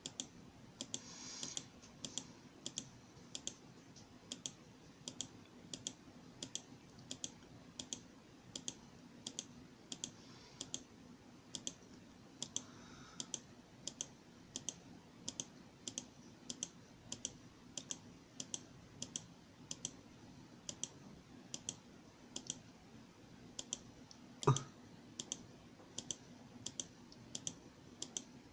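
Steady, evenly spaced clicks, roughly one and a half per second, with one louder knock about 24 seconds in.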